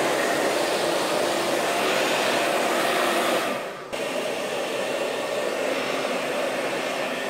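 Hand-held hair dryer blowing at close range: a steady, loud rush of air over the motor's hum. About three and a half seconds in it dips briefly, then carries on a little quieter.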